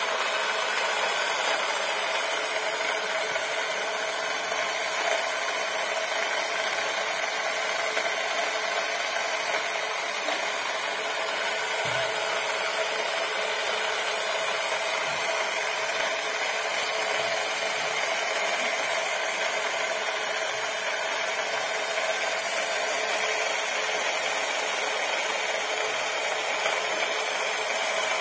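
Battery-operated tin toy TV truck's small electric motor and gear train whirring steadily as the toy runs across a tile floor, with one even pitched hum under the whir.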